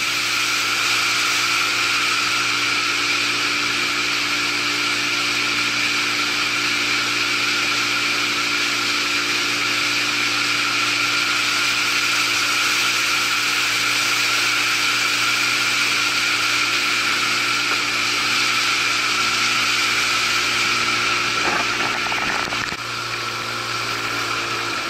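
Boat motor running at a steady speed, a constant mechanical drone with a high whine, as the boat moves along the channel.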